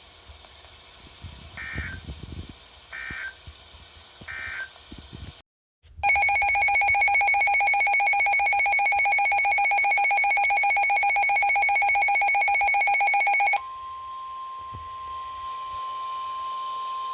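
Emergency Alert System tones: three short faint data bursts of the header, a brief dead gap, then the loud warbling two-tone EAS attention signal for about seven and a half seconds. It cuts off abruptly and gives way to a quieter steady single-pitch weather-radio alert tone.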